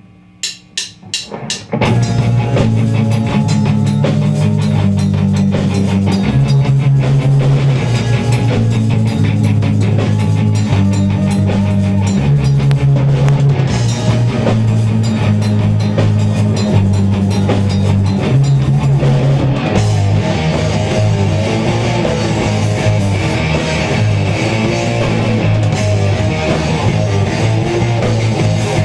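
Four evenly spaced count-in clicks, then a rock band kicks in together about two seconds in: drum kit, electric bass and electric guitars played through amplifiers, with a steady repeating bass line.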